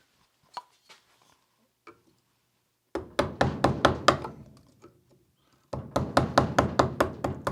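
Mallet tapping a No. 9 carving gouge into wood, in two quick runs of sharp knocks about six a second, the first starting near the middle and the second near the end.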